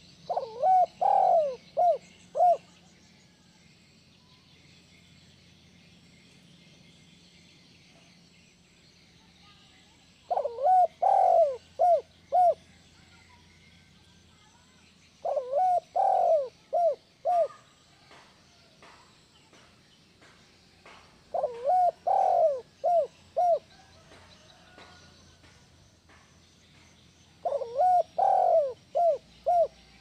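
Spotted dove cooing: five phrases, each a quick run of four or five coos with the first ones longest, coming every five to ten seconds.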